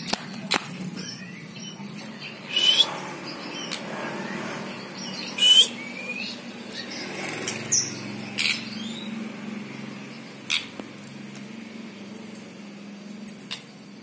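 White-rumped shama (murai batu) giving short, sharp calls every second or two, some hooked in pitch, with a few softer whistled notes between them. A low, steady hum runs underneath.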